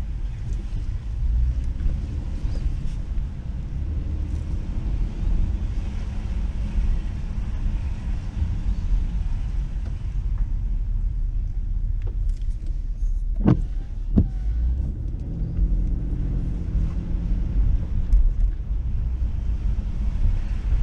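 A car driving on a wet street, heard as a steady low rumble of engine and road noise with a faint hiss of tyres on wet pavement. Two short, sharp sounds come close together about two-thirds of the way through.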